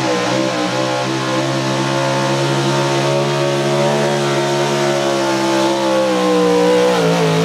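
A 440-cubic-inch small-block V8 in a 4x4 pulling truck running flat out under load as it drags the sled. Its steady high-rev note drops in pitch about six seconds in as the engine is pulled down.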